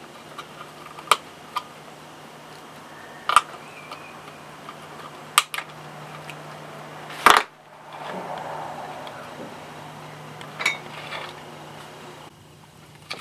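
Scattered light clicks and taps from handling a glow plug relay's plastic housing and circuit board, about half a dozen over the stretch, the loudest about seven seconds in, over a faint steady low hum.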